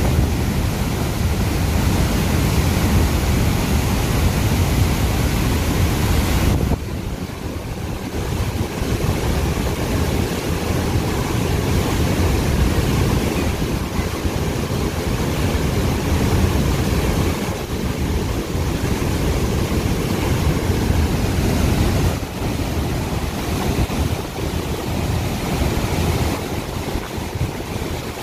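Flood water rushing down a dam spillway through its lifted crest gates and crashing into spray below: a loud, steady rush that dips slightly about seven seconds in.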